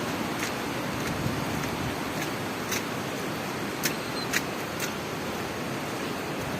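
Steady hiss of heavy typhoon rain, with a few sharp ticks scattered through it.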